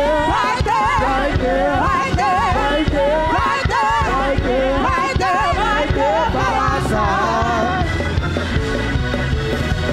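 A woman's amplified singing voice running through melismatic, wavering lines over live church-band accompaniment with a low bass line and drum hits. The singing stops about eight seconds in while the band plays on.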